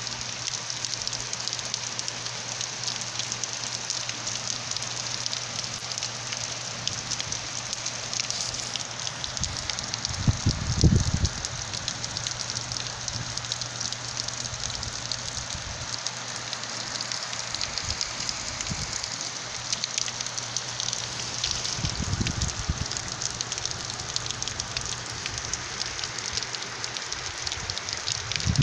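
Steady rain falling, a dense patter of drops, with a few brief low rumbles about ten seconds in, about twenty-two seconds in and at the end.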